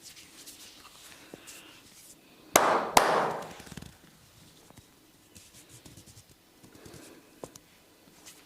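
Two sharp smacks of hands striking during a head massage, about half a second apart, the second trailing off in a brief rush of noise, amid quiet rubbing of hands on skin and hair.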